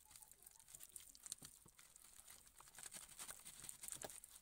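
Faint, irregular wet patter of a hand beating thick gram-flour (besan) batter round and round in a bowl.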